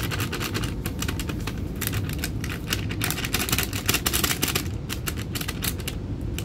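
Plastic sachet of gulaman (agar jelly) powder crinkling and crackling in rapid, irregular clicks as it is shaken and tapped to empty the powder into a metal pot, busiest about two seconds in and again around four seconds.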